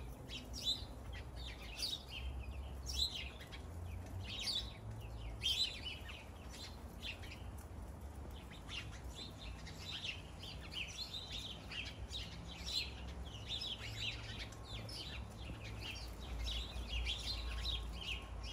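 A chorus of backyard songbirds chirping and calling busily: many short, high, down-sweeping chirps overlapping, over a low steady rumble.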